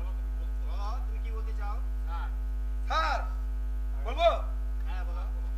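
Loud, steady electrical mains hum from the stage sound system. A few short, faint voice sounds come through it, a little louder about three and four seconds in.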